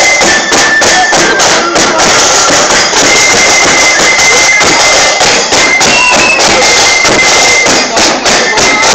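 Marching band playing: snare drums rattling and a bass drum beating under a loud, high wind-instrument melody of held notes.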